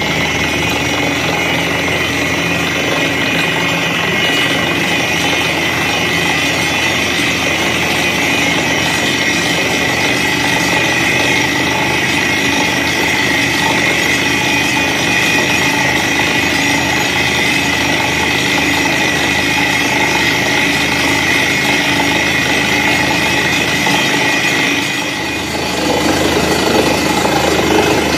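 Truck-mounted borewell drilling rig running steadily as it drills, a dense loud mechanical din with a steady high tone through it. It dips briefly near the end, then comes back louder.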